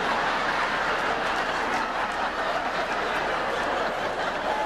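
A large theatre audience laughing, a steady wave of crowd laughter that holds without a break after a stand-up punchline.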